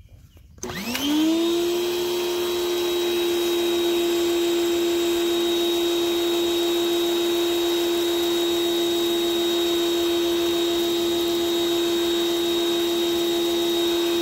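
Sun Joe electric pressure washer's motor and pump starting up about half a second in as the gun's trigger is pulled, quickly rising in pitch, then running at a steady, even hum while the soap nozzle sprays. The pump runs only while the trigger is held and is silent when the gun is set down.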